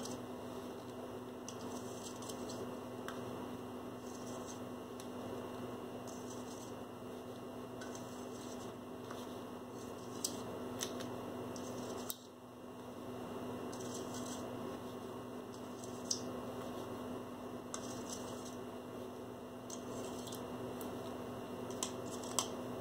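Steady electrical hum, with a few faint ticks and soft swishes from a paintbrush flinging acrylic paint onto a canvas.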